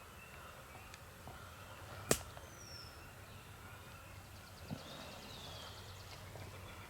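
A single sharp crack of a shot taken at a turkey, about two seconds in, over faint falling whistles of songbirds.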